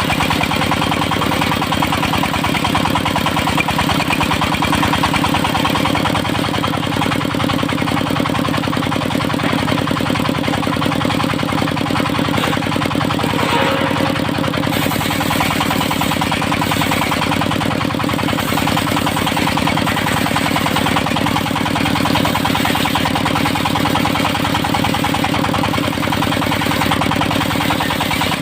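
Engine of a portable circular sawmill running steadily, with an even engine beat throughout and a slight shift in its low tone about halfway through.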